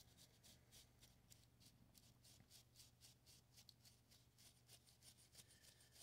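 Very faint, quick rubbing strokes, about four a second, as dust is wiped off the small fan motor's parts by hand, over a faint steady low hum.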